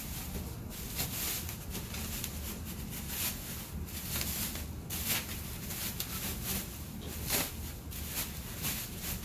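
Packaging rustling and crinkling in irregular crackles as cold air intake parts are pulled out of their box, over a steady low hum.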